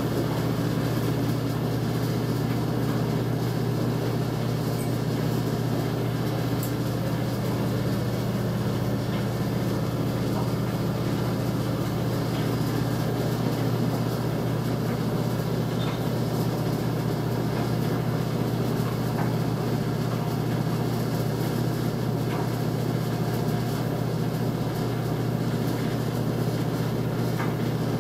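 Clothes dryer running: a steady low hum and rumble that does not change.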